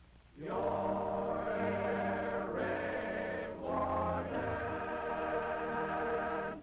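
Choir holding a long final chord, shifting to a second chord a little past halfway, then cutting off suddenly at the end of the song.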